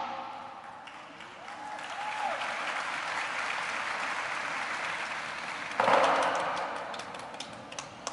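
Audience applauding, swelling briefly about six seconds in and then fading.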